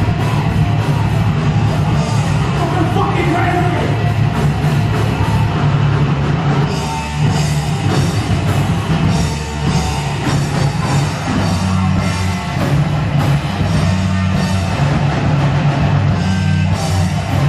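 Heavy metal band playing loud, with a drum kit driving a steady beat under heavy low guitar and bass, and yelled vocals at times.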